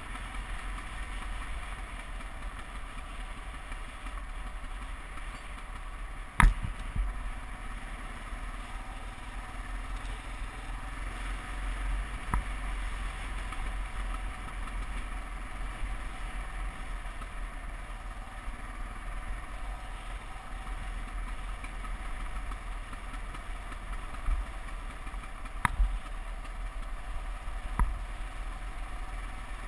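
Dual-sport motorcycle engine running steadily while riding a dirt road, over a low rumble. A few sharp knocks cut through, the loudest about six seconds in and two more near the end.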